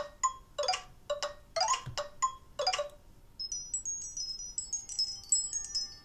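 Nokia Lumia 1520 smartphone playing ringtone previews through its loudspeaker. First comes a chime ringtone: a run of struck, ringing bell-like notes, several a second. About three seconds in it gives way to a faint, quick, high-pitched tinkling melody.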